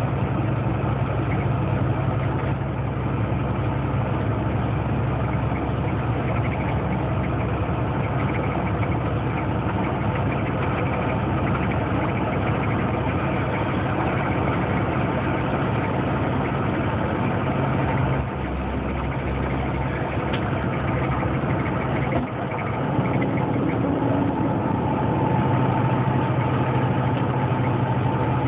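Truck engine droning steadily, heard from inside the cab while cruising on the highway, with road noise. The engine note dips and changes briefly about two-thirds of the way through, then settles with a higher steady tone added.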